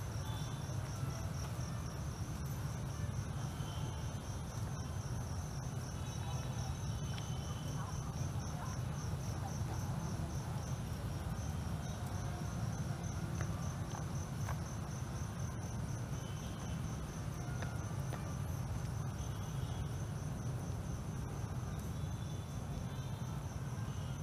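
Crickets chirping in a fast, even pulse, with a low steady rumble underneath.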